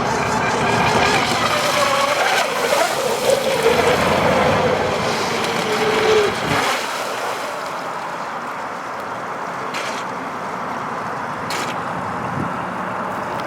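Battery-powered Miss Geico RC racing boat's electric motor whining at speed, its pitch slowly falling. About six and a half seconds in the whine drops away, leaving a steady rush of water and wind.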